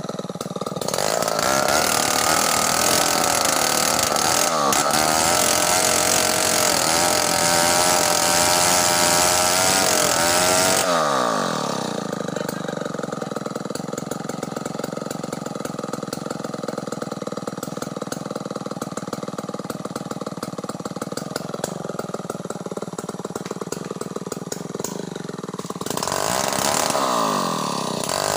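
Large chainsaw running at high revs with its pitch wavering for about ten seconds, then dropping to a steady idle for about a quarter of a minute, and revving up again near the end.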